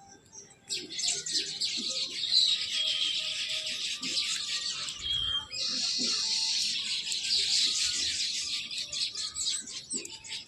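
Small birds chirping in a dense, rapid chatter that starts about a second in, with a short lull around the middle before it picks up again.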